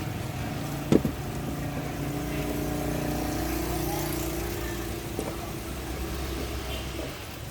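A steady low mechanical hum like a running motor, with a single sharp knock about a second in.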